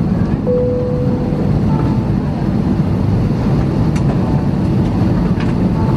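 Steady low rumble of cabin noise inside an Airbus A320-214 parked at the gate, with the aircraft's air systems running. A faint short tone sounds about half a second in.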